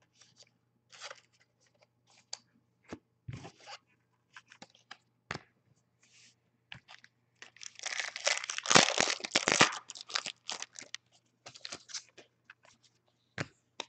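A foil trading-card pack of 2014 Certified football cards torn open and crinkled, loudest for about two seconds around eight to ten seconds in, with light rustles and clicks of cards being handled before and after.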